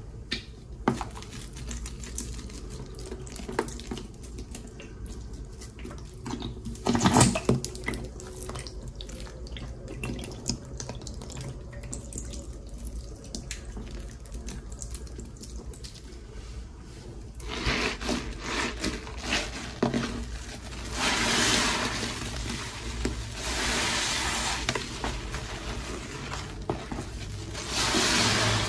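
Soapy sponges in a plastic bucket being worked by hand. There is soft wet crackling at first, with one louder squelch about seven seconds in. From a little past halfway, the sponges, loaded with dish soap paste and bleach gel, are squeezed in several surges, with foamy liquid gushing and splashing out.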